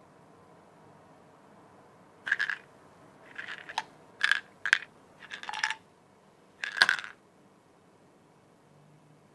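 Pills rattling inside a plastic pill bottle as it is handled and shaken, in about six short rattles with a few sharp clicks; the last rattle, near the end, is the loudest.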